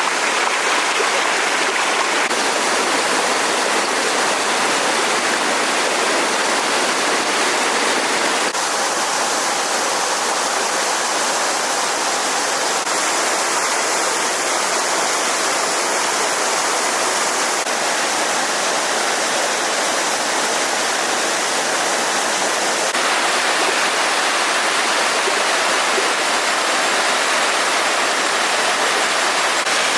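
Stream running steadily: a dense, even rush of flowing water, its tone shifting slightly twice.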